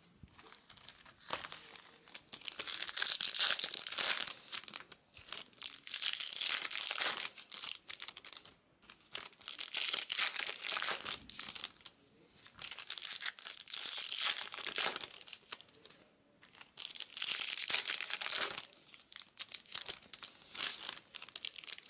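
Foil wrappers of 2022 Bowman Chrome baseball card packs being torn open and crinkled, in several rustling spells of a few seconds each with short pauses between.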